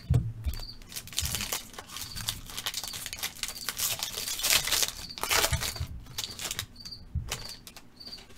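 A foil trading-card pack crinkling and tearing as it is handled and opened, in a run of rustling that builds to its loudest near the middle and dies away near the end. There are a few soft handling bumps near the start.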